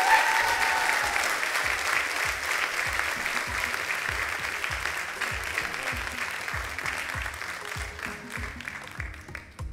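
Church congregation applauding, loudest at first and slowly fading, while music with a steady low beat starts underneath about half a second in.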